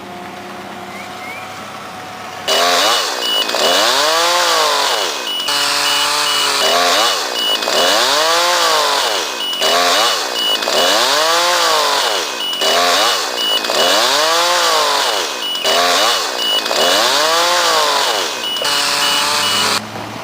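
Chainsaw started up and revved up and down over and over, about every two seconds, cutting tree branches. Before it starts, a lower steady engine hum.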